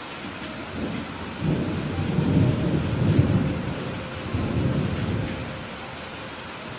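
Steady rain with a long roll of thunder that builds from about a second in, peaks around the middle and fades away near the end.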